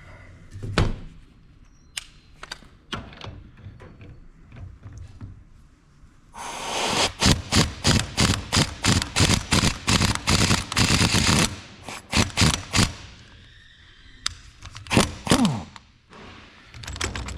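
Gear puller being driven against a differential's pinion flange: a loud run of rapid mechanical hammering, pulsing several times a second, for about six seconds. Scattered metal clicks and clanks come before and after it as the puller is fitted and handled.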